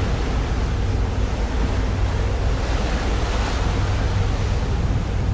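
Steady rushing noise of wind and sea, heaviest in a low rumble, with no bang or other distinct event.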